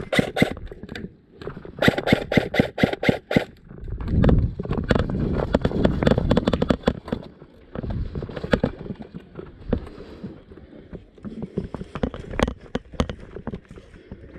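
A quick string of about eight sharp shots from an airsoft rifle, roughly five a second, about two seconds in, with scattered single shots and the rustle of a player moving in gear around them.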